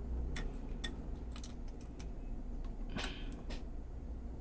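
Small, sharp clicks and taps from metal tweezers working a flat flex cable into a tiny board connector, about half a dozen irregular ticks with a brief scrape about three seconds in.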